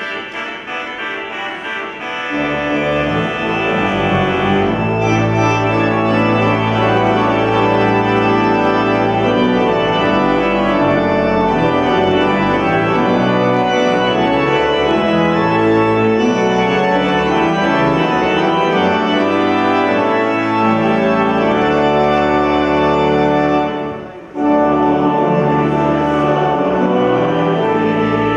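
Church organ playing processional music in full, sustained chords, with deep bass notes entering about two seconds in. The music breaks off briefly near the end and starts again.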